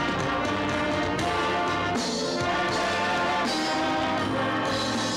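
A live band's horn section of trumpets and alto saxophones playing a melody together in long held notes.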